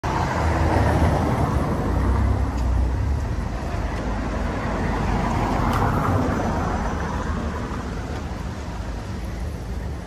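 Street traffic: cars passing on a town street, a noisy rumble of engines and tyres that is loudest over the first few seconds, swells again about six seconds in, then fades.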